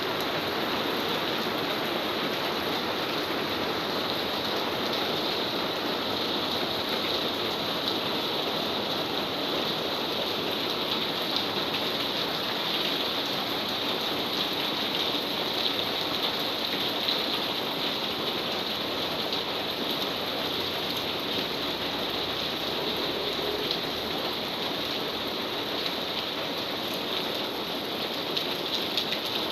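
Rain falling steadily: an even, unbroken hiss with no let-up.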